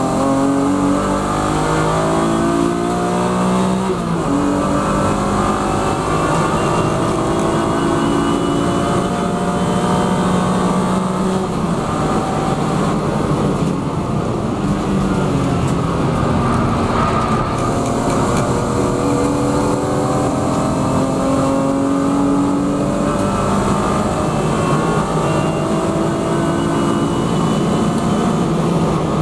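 BMW E36 M3 Evo's straight-six race engine at full throttle, heard from inside the cabin. It climbs in pitch through the gears and drops back at each upshift, with road and wind noise under it.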